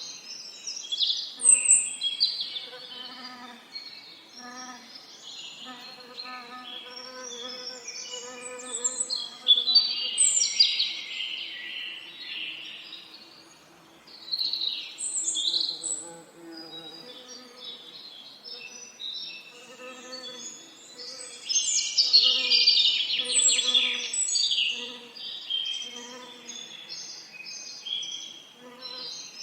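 Several songbirds singing over one another in a dense chorus of chirps, trills and quick sweeps, with a few louder phrases. Under them runs a low, pulsing hum of bees buzzing.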